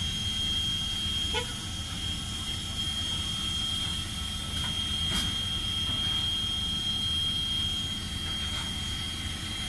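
Steam locomotive No. 89 of the Strasburg Rail Road moving slowly with its coach: a steady low rumble under a thin, steady high tone, with a sharp clank about a second and a half in and another about five seconds in.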